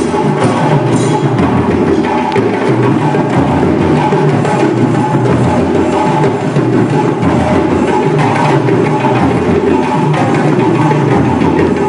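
Music driven by steady percussion: drums and other hand percussion playing continuously without a break.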